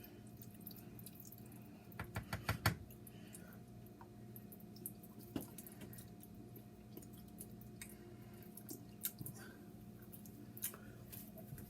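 A spatula scooping sticky Alfredo noodles, with soft wet squishing and sharp clinks of the utensil against the dish, a quick run of four or five knocks about two seconds in and a few lighter taps later. A steady hum runs underneath.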